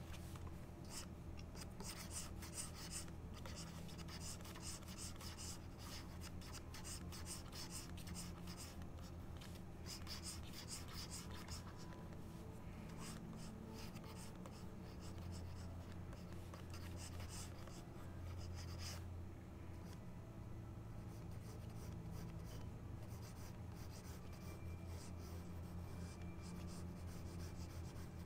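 Stylus scratching on a graphics tablet in quick, repeated sketching strokes, busy through the first two-thirds and lighter near the end, over a steady low hum.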